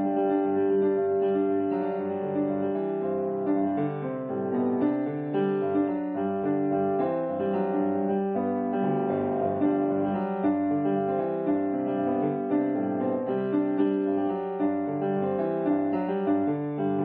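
Background piano music, a keyboard melody of short, changing notes.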